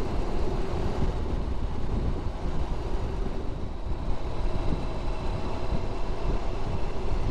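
Honda VFR1200X motorcycle cruising at a steady speed: the V4 engine's low hum under a steady rush of wind, heard from a helmet-mounted camera.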